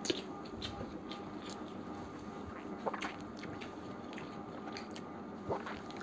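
People eating biryani with their hands: faint chewing and mouth noises, with scattered soft clicks and small ticks as fingers work the rice on ceramic plates.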